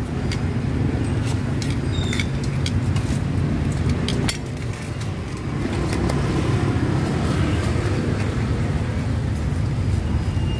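Steady low rumble of road traffic, with a few light clicks and clinks in the first few seconds.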